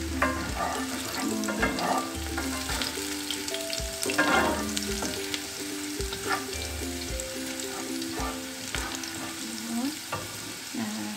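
Sliced shallots, garlic and red chilli sizzling in hot oil as they are sautéed until fragrant, with a spatula scraping and tapping against the pan every second or two.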